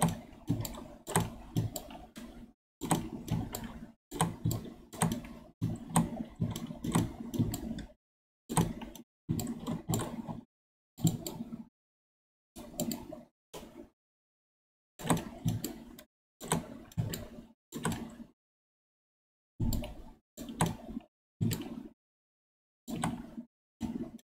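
Bursts of clicking and scraping from handling computer input devices during digital sculpting, with dead silence between the bursts. The bursts come thick over the first eight seconds and then more sparsely.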